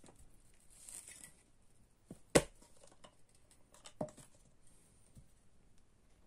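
Packaging of a spray can of silicone lubricant being torn open and handled, with a short rustle about a second in, then one sharp click a little over two seconds in and a softer click about four seconds in as the can is put together.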